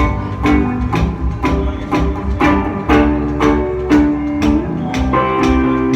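Guitar strummed in a steady rhythm, about two strokes a second: the instrumental intro before the singing starts.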